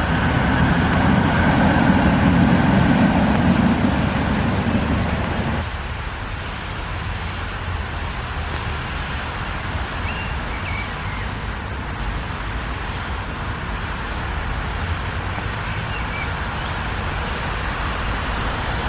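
A motor vehicle passing close by, loud for the first five seconds or so and then fading into a steady background of traffic noise. A few faint bird chirps come through near the middle and later on.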